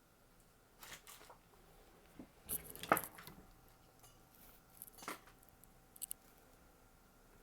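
Scattered light clicks and scrapes of small laptop parts and tools being handled during a power-jack removal, the loudest about three seconds in.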